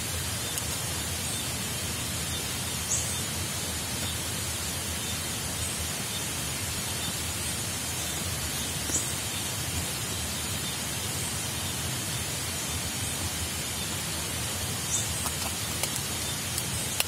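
Steady rushing hiss of falling water, with a few faint high ticks about every six seconds.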